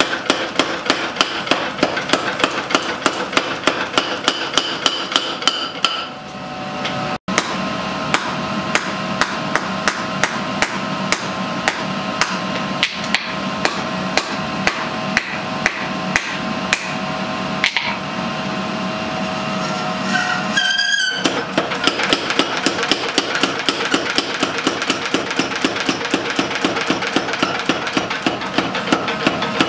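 Hammer blows on a red-hot white steel chef knife blade lying on an anvil, in a steady rhythm of about two to three strikes a second, as the hot blade is forged to shape.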